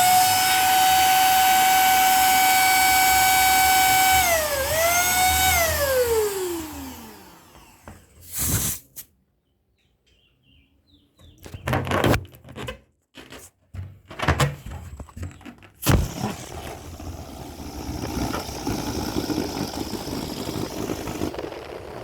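Electric balloon pump running with a steady high whine, dipping briefly, then switched off and winding down in a falling whine. Several sharp clicks and knocks follow, then a steady hissing noise near the end.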